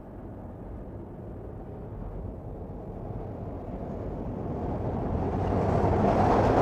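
Rumble of an approaching subway train, growing steadily louder.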